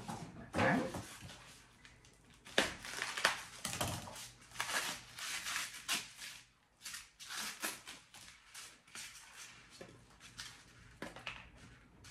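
Small cardboard gift box and its clear plastic wrapping being handled and pulled open, with irregular crinkling, rustling and tearing.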